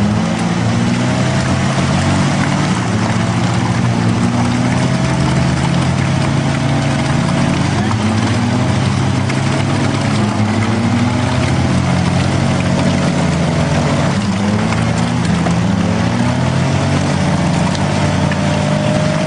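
A 4x4's engine running hard, revs rising and falling as the vehicle works to get through deep mud.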